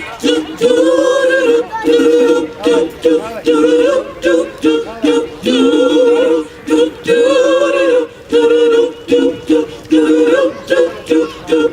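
Gospel choir singing in harmony, several voices together in phrases with short breaks between them.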